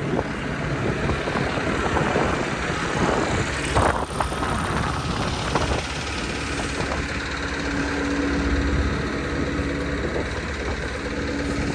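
A machine's engine running steadily, with a low hum that settles in during the second half, under wind noise on the microphone. There is a brief louder noise about four seconds in.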